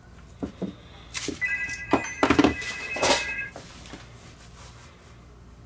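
A phone ringtone of a few steady high tones, about two seconds long, starting a little over a second in. Under and around it, several knocks of small objects being set down on a wooden workbench.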